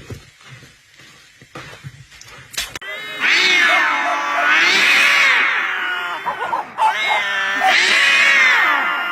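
A domestic cat yowling: two long, loud drawn-out wails that rise and fall in pitch, starting about three seconds in.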